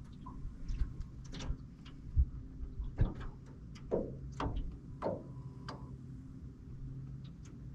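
Irregular light clicks and knocks of fishing tackle being handled while a lure is changed, over a steady low hum.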